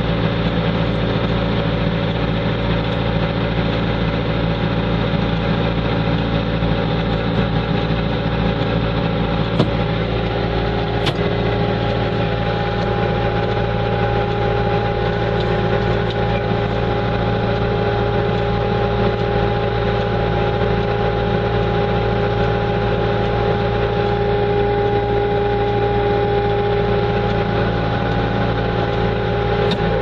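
Bobcat 2410 loader engine idling steadily, heard from the operator's cab.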